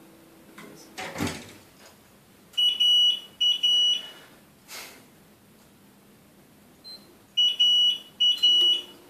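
IV infusion pump beeping as its keypad is worked: a high electronic tone in two pairs of beeps, about two and a half seconds in and again near the end. A soft knock about a second in.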